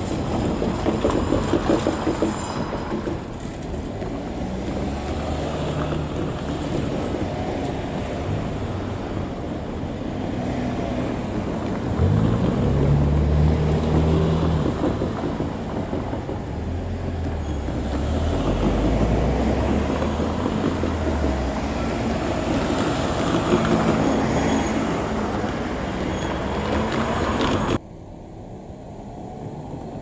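JR KiHa 48 diesel railcars running along the track, the diesel engines revving up about twelve seconds in and shifting pitch several times, with wheel and rail noise throughout. The sound drops suddenly to a quieter level near the end.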